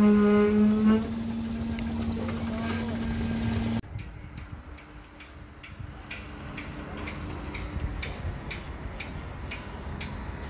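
A motor hums steadily under a brief shout, then cuts off abruptly about four seconds in; after that comes a faint machine hum with a regular series of sharp clicks, about two or three a second.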